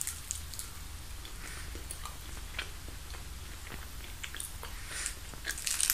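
A person chewing a bite of soft kusa mochi (grass mochi), with faint small mouth clicks. A few sharper crackles come near the end.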